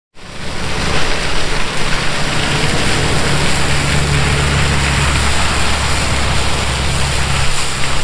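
Case IH tractor pulling a rotary stalk shredder through corn stalks: the engine runs steadily under load beneath a dense, even rushing noise from the shredder chopping the stalks.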